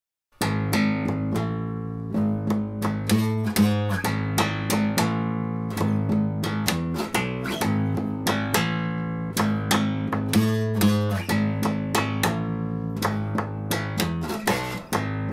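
Acoustic bass guitar played solo: a steady run of plucked single notes, starting about half a second in.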